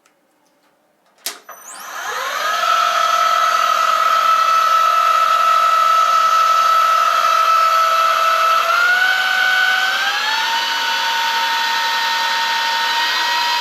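A switch clicks, then a Harrison M250 metal lathe starts and spins up to a steady whining run. Its pitch steps up twice, around nine and ten seconds in, then holds.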